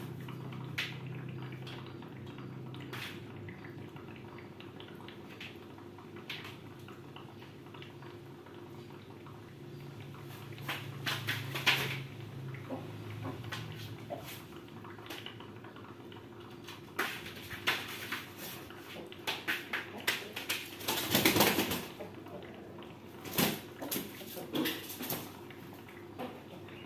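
Scattered light knocks, taps and rustles of hands handling small things at close range, over a low steady hum. About 21 seconds in comes a louder noisy burst lasting about a second.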